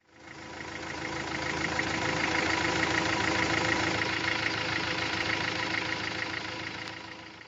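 Engine idling with a steady, even rhythmic pulse. It fades in over the first second or so and fades out near the end.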